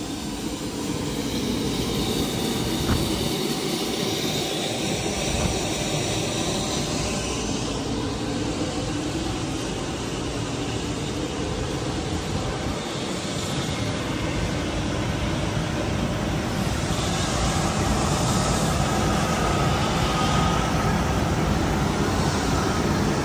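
Steady rushing roar of jet aircraft noise on an airport apron, growing a little louder over the second half, with a faint whine near the end.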